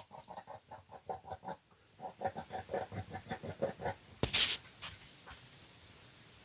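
An unseen animal under a wooden deck making a rapid run of short repeated sounds, about six a second, which stops and starts again once. About four seconds in there is a sharp click and a brief hiss.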